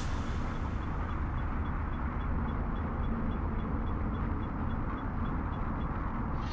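Steady low engine-like rumble, with a faint high tick repeating evenly about three to four times a second.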